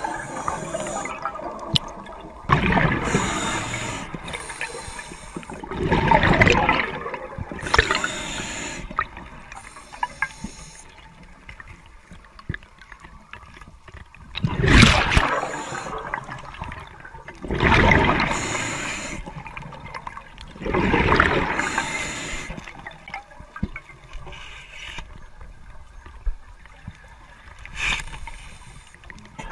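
Scuba diver breathing underwater through a regulator: a rush of exhaled bubbles lasting about a second, seven times at intervals of a few seconds, with faint ticks in between.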